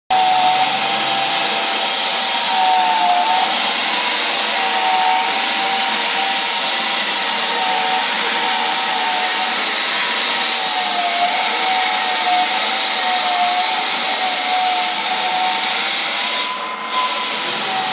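Walk-behind floor sander with a dust bag running while sanding a solid-wood parquet floor: a steady, loud sanding rush with a wavering motor whine. The high hiss briefly dips near the end.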